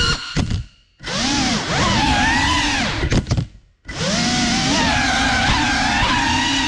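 GEPRC CineLog 35 cinewhoop's brushless motors and ducted propellers whining, the pitch wavering up and down with throttle. The whine dies away almost to silence twice, about half a second in and again about three seconds in, and each time spins back up within about half a second.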